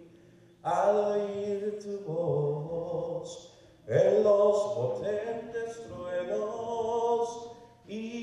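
A man singing a slow Spanish song unaccompanied into a handheld microphone, holding long notes. He sings two phrases, the first starting about half a second in and the second about four seconds in.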